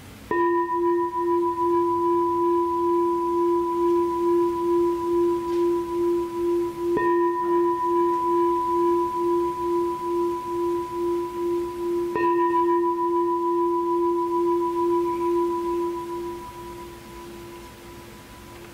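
Tibetan singing bowl held in the hand and struck three times with a striker, about seven and then five seconds apart. Each strike rings on as a steady, slowly pulsing hum with a higher overtone above it, and the ringing fades out near the end.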